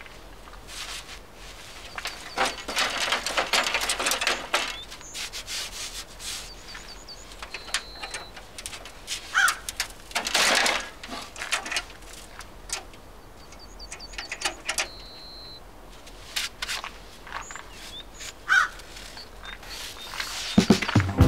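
Metal clatter and scraping as an old tractor's sheet-metal bonnet is handled and lifted open. Bird calls come in twice between the noises, each a quick run of high chirps ending in a short held whistle.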